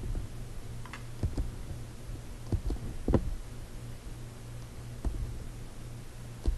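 Scattered, irregular clicks of a computer keyboard and mouse over a low steady hum.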